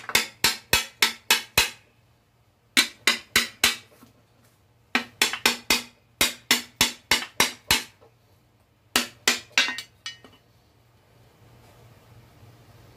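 A hammer tapping on the cast-metal side bearing plate of a Cub Cadet 102 engine to knock the plate loose. The taps are quick and ringing, about four a second, in four bursts with short pauses, and they stop about ten seconds in.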